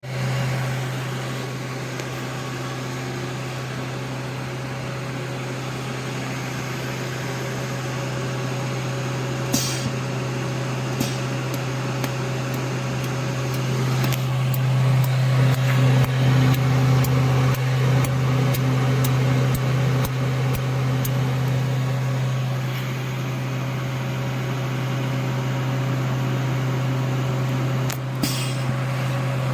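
Desktop jewelry laser welding machine humming steadily, with many sharp clicks from single laser pulses firing at irregular intervals, most of them in the middle of the stretch. Two short hisses are heard, one before the clicking starts and one near the end.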